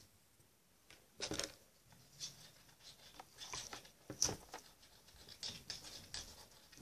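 Faint handling sounds of a thin wire and a doll's hair being worked by hand: light rubbing and scattered small clicks, with a sharper click a little over a second in.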